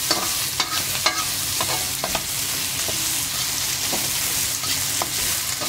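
Chopped chayote and other vegetables sizzling in hot oil in a frying pan while being stirred, a utensil scraping and tapping against the pan every half second or so.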